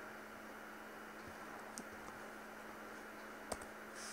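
A few faint computer keyboard keystrokes over a steady low hiss and hum, the loudest key press about three and a half seconds in.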